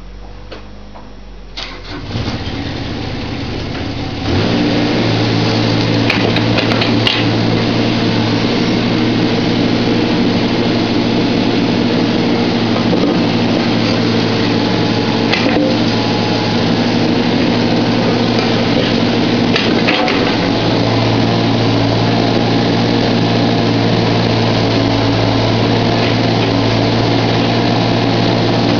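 Volvo EC15 mini excavator's diesel engine starting about two seconds in. It picks up speed a couple of seconds later and then runs steadily. A few short knocks sound over the running engine.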